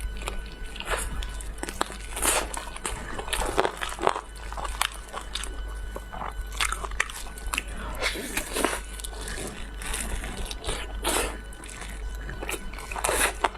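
A person eating close to the microphone: irregular bites, crunches and chewing, with a steady low hum underneath.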